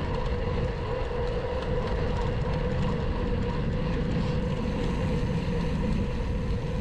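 Steady low rumble with a constant hum, like a running motor or vehicle.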